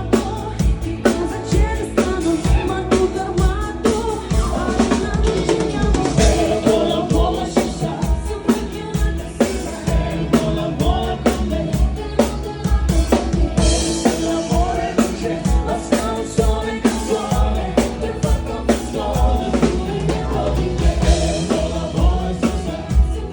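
Cover band playing live: a drum kit keeping a steady beat with bass drum and snare, under a singer's melody.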